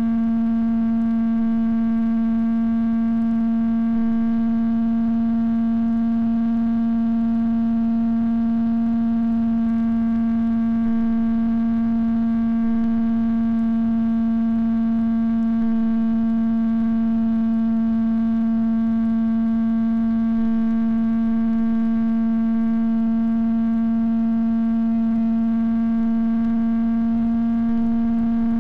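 Steady electronic buzz: one constant low tone with a stack of overtones over a faint hiss, unchanging throughout. It is interference on the FPV video link's recorded audio rather than a motor sound.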